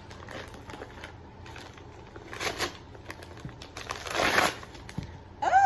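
Packaging being opened by hand: crinkling and rustling with scattered small clicks, and two louder bursts of rustling, one about halfway and one near the end.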